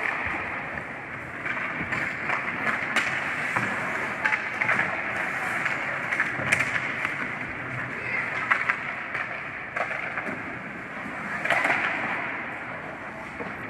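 Ice skate blades scraping and carving across rink ice, with sharp clacks of hockey sticks and puck every few seconds.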